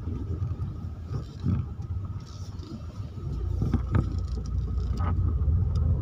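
Low rumble of a car's engine and tyres, heard inside the cabin as the car drives slowly over a paved road. It grows louder about halfway through, with a couple of light knocks.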